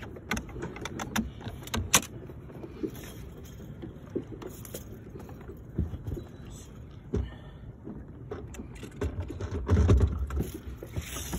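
Scattered knocks, clicks and rattles of handling on a boat deck, with a sharp knock about two seconds in and a louder low rumble mixed with knocks around ten seconds in.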